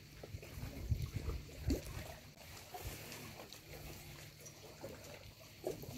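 Sea water lapping and splashing at the shoreline, with an irregular low rumbling underneath.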